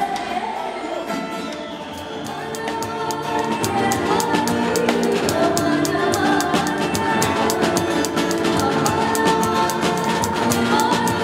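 Upbeat music with singing over a steady drum beat, which comes in strongly about two seconds in.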